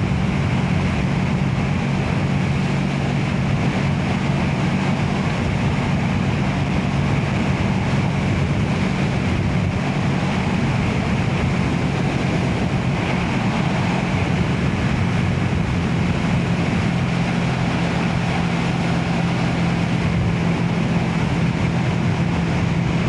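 Motorcycle engine running at a steady cruising speed, its pitch holding level, under a constant rush of wind noise on the helmet microphone.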